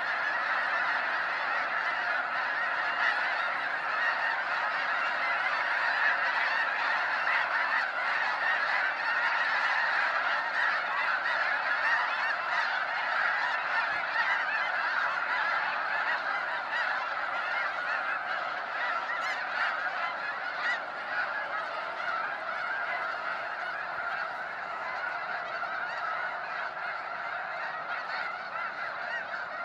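A large flock of snow geese honking in a dense, unbroken chorus as the flock takes off and flies over the marsh. The chorus thins a little toward the end.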